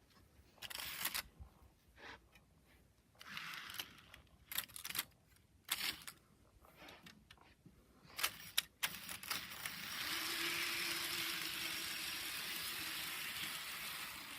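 Clicks and rattles of small plastic and metal parts being handled, then, about ten seconds in, a model train locomotive starts running steadily on the track with a faint motor hum and wheel rumble.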